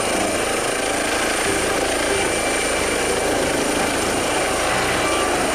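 Eurocopter EC135 air ambulance helicopter lifting off and climbing away. Its rotors and engines run steadily and loudly, with a steady high whine over the rotor noise.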